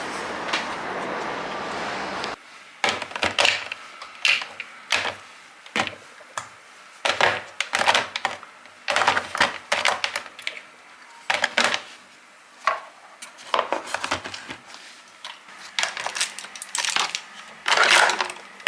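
A steady hiss that cuts off suddenly about two seconds in, then a long run of irregular light clicks and knocks as small objects are handled and set down.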